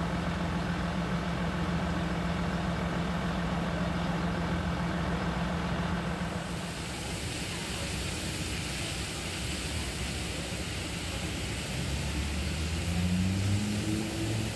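Mercedes fire engine's diesel engine running steadily with a low drone. About six and a half seconds in, this gives way to the steady hiss of a water jet spraying from a fire hose nozzle, with a low engine note rising near the end.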